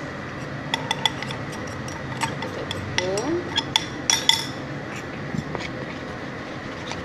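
Spoon clicking and tapping against the bowl as flour is added to egg batter and stirred in: a run of sharp clinks over a few seconds, the loudest about four seconds in, then quieter stirring.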